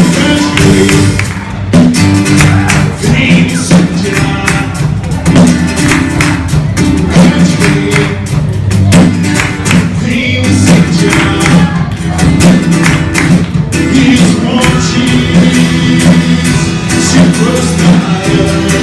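Band music, mostly instrumental, with guitar and a steady percussion beat in a Brazilian gospel worship song.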